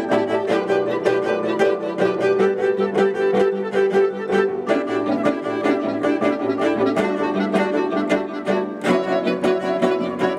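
Music led by bowed strings, violin and cello, playing quick, evenly repeated rhythmic strokes.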